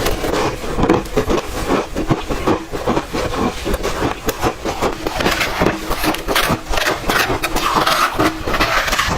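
Close-miked chewing of crunchy ice: a steady run of rapid crackling crunches, one after another.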